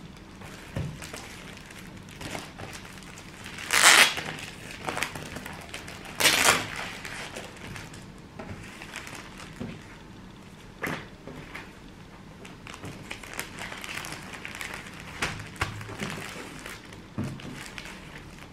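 Clear plastic sleeves and an old newspaper rustling and crinkling as they are handled on a table, with two louder rustles about four and six seconds in. Light taps and knocks of things set down on the tabletop come between.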